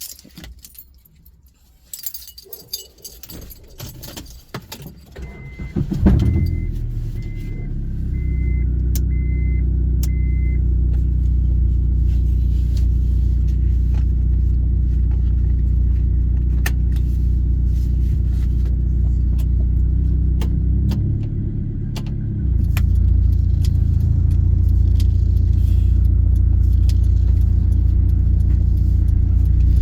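Keys jangling and a car's warning chime beeping in a short even series, then a 2000 Honda CR-V's four-cylinder engine starts about six seconds in and settles into a steady run. A little past two-thirds of the way through, the engine sound dips briefly and then comes back slightly louder.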